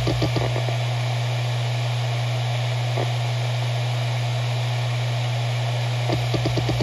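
Maxtor MaXLine Pro 500 7200 RPM hard drive spinning with a steady hum. Rapid head-seek ticking, about eight ticks a second, stops shortly after the start; a single click comes about halfway, and the ticking starts again near the end.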